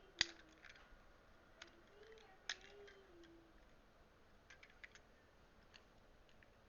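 Faint sharp clicks and snips of a small cutting tool working on an electrical cord's wire: a loud snap about a quarter second in, another about two and a half seconds in, then a few lighter ticks. A faint soft rising-and-falling whine sounds twice between them.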